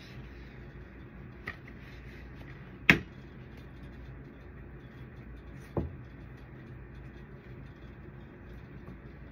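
Parts and cloths being handled on a work table: a light click, then a sharp knock about three seconds in and a duller knock near six seconds as things are put down, over a steady low hum.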